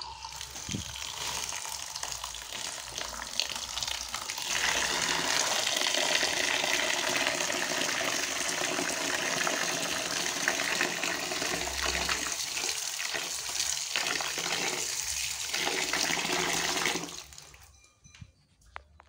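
A stream of water pouring onto grated coconut in a plastic bowl, adding water for squeezing out coconut milk. The pour grows fuller about four seconds in and stops a couple of seconds before the end.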